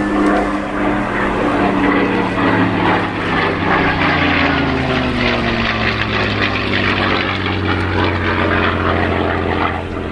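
Messerschmitt Bf109G-4's Daimler-Benz DB 605 piston engine and propeller running loud through an airshow display pass. The engine note drops in pitch between about two and five seconds in, then holds steady.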